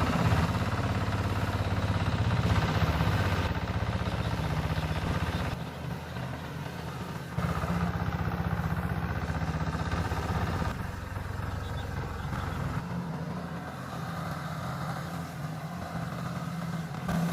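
Farm tractor engine running steadily while being driven through the field, its hum dropping in loudness about six seconds in and again after about twelve seconds.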